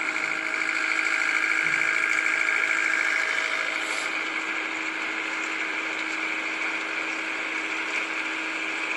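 Excavator's diesel engine running steadily as the machine drives along, heard from on board, a little louder for the first three seconds.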